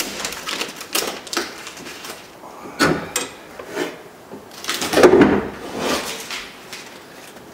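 Blue painter's tape being pulled off the window glass and handled: a string of short rasps and rustles with light knocks, the loudest rasp about five seconds in.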